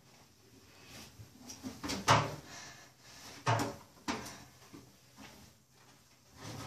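A few short knocks and bumps against a stacked washer and dryer as clothes are handled and moved between the two machines, the loudest about two seconds in.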